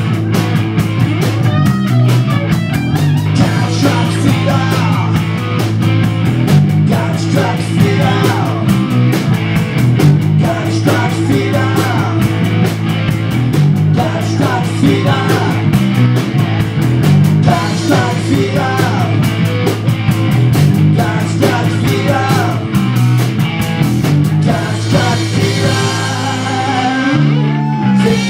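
Rock band playing a hard rock song on electric guitar, bass guitar and drum kit, with some singing. The bass line changes near the end.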